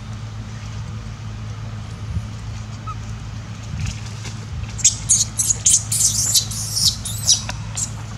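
Baby macaque crying: a quick run of short, shrill, high squeals, about a dozen in under three seconds, starting about five seconds in, over a steady low hum.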